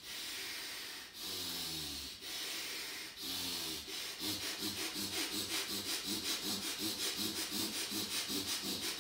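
Bhastrika (bellows) breathing: a man's forceful inhales and exhales through one nostril, his left, with the right nostril pressed shut. It starts as slow, deep breaths of about a second each and, about four seconds in, speeds up to rapid, evenly paced pumping breaths.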